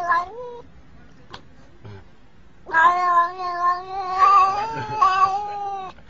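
Black-and-white tuxedo cat meowing: the end of one call right at the start, then after a pause a single long meow lasting about three seconds.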